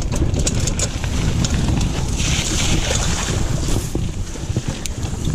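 Wind buffeting the microphone of a handlebar-mounted camera on a mountain bike riding rough dirt singletrack, with a steady low rumble and scattered clicks and rattles from the bike over bumps. A brighter hiss rises for a couple of seconds around the middle.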